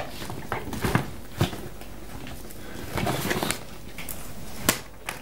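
A handbag being rummaged through: rustling with small clicks and knocks, a busier stretch a little past halfway, and one sharp click near the end.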